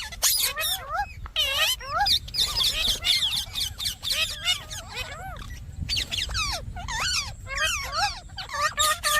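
Indian ringneck parakeet chattering and squawking: a fast, busy string of short calls that swoop up and down in pitch, with a run of evenly repeated calls near the end.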